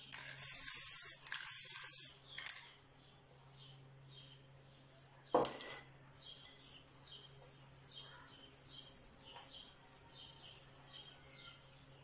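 Aerosol spray can hissing in two short bursts in the first two seconds, then a single sharp knock about five seconds in. After that, faint high chirps repeat about twice a second.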